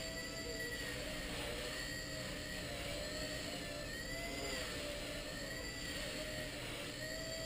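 Blade Nano CP micro collective-pitch RC helicopter in flight, its motor and rotor giving a steady high whine. The pitch dips and rises a little in the middle as the heli manoeuvres.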